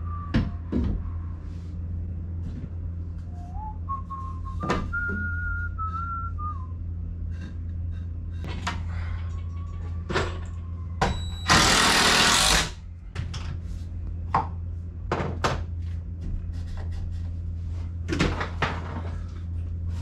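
Scattered knocks and thunks of lumber and tools being handled during wall-framing work, over a steady low hum. A few whistled notes come a few seconds in, and a loud burst of noise lasting about a second comes near the middle.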